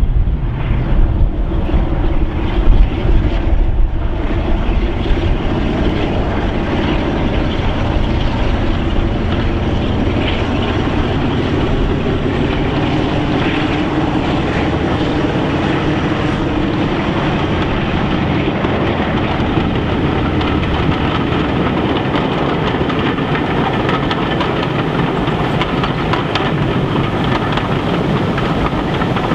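Diesel locomotives, Class 47 no. 47715 'Poseidon' and Class 25 D7629, running steadily under power as they haul a passenger train. Wind buffets the microphone for the first few seconds.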